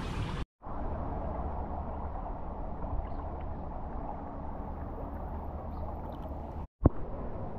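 Steady outdoor background noise, an even hiss strongest at the low end, cut off briefly twice, with a single sharp click just after the second break near the end.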